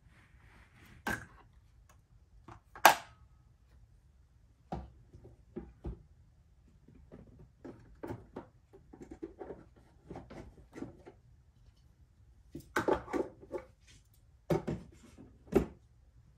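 Clicks and knocks from handling an LK150 knitting machine's carriage and needle bed: a sharp knock about three seconds in, a run of small clicks through the middle, and clusters of louder clacks near the end.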